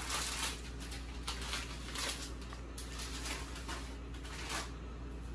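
Dry thin spaghetti being pulled from its plastic packet and handled: about five short rustling, crackling bursts over a steady low hum.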